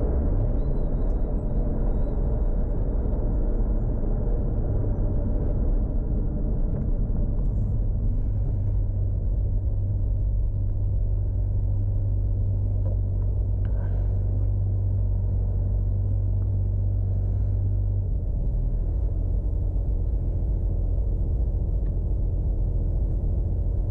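Tuned Toyota Supra MK4's 2JZ straight-six engine running with a steady low rumble, as in light city driving. An even low drone holds from about a third of the way in until past the middle, then eases slightly.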